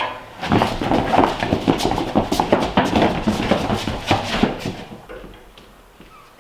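A rapid, irregular run of knocks, clunks and scrapes as a heavy load is lifted and shifted by hand on a count of three, starting about half a second in and dying away near the end.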